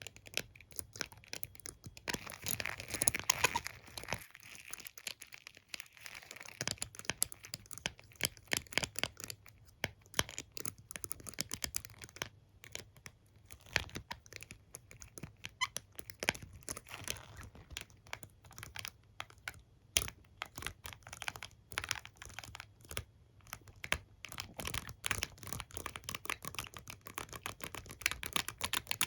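A hairbrush and comb being handled, their bristles and teeth scratched and tapped: a stream of small, irregular clicks and crackles, with a denser scratchy stretch about two to four seconds in.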